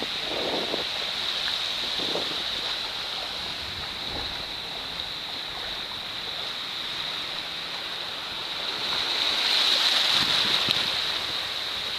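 Gentle surf in the shallows of a sandy beach: small waves breaking and washing over the sand as a steady hiss, swelling louder near the end as foamy water washes in close.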